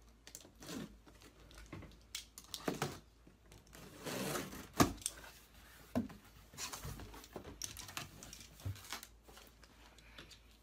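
A large cardboard box being opened and unpacked by hand: tearing, with rustling and crinkling of packing, and scattered knocks. The loudest is one sharp knock a little under five seconds in.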